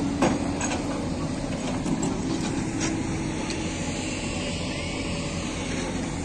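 Heavy diesel engine of a JCB excavator running steadily, with a couple of sharp knocks, the loudest just after the start and another about three seconds in.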